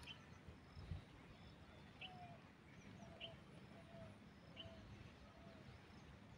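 Faint birds calling in open farmland: short high chirps repeating every second or so, and a run of five lower whistled notes from about two seconds in, over quiet outdoor hiss.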